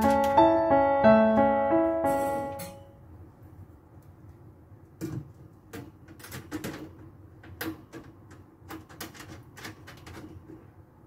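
Background music with a stepping melody that stops about two and a half seconds in. It is followed by scattered light clicks and taps as a wire fan grille is fitted back onto a stainless steel range hood.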